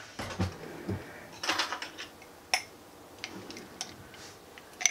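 Light kitchen handling noises as butter is fetched and brought to the pot: scattered soft taps and clicks, with a short rustle about one and a half seconds in and a sharper click a second later.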